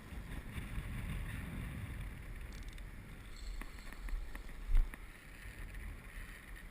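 Wind buffeting the microphone, a low rumbling haze, with a few faint clicks and one dull thump a little past the middle.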